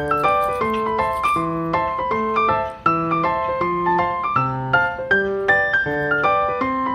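Background piano music: a light tune of evenly paced single notes and chords.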